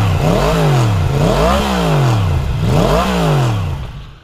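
Motorcycle engine revved up and down three times, each rise in pitch falling back again, then fading out near the end.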